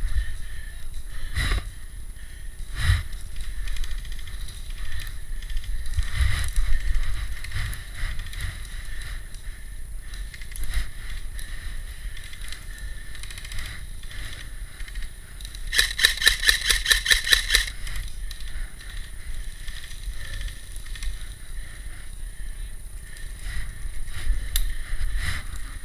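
Wind and handling rumble on a head-mounted camera microphone, with scattered knocks and brush rustling. About two-thirds of the way through, an airsoft gun fires a rapid burst of about two seconds.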